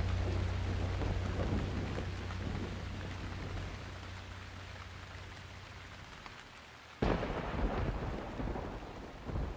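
Rain falling steadily and slowly fading, then a sudden thunderclap about seven seconds in that rumbles on, with a second rumble near the end.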